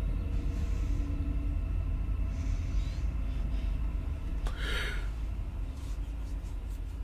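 Low, steady rumbling drone with faint held tones, the tense ambient bed of a horror film, with a short whoosh about four and a half seconds in.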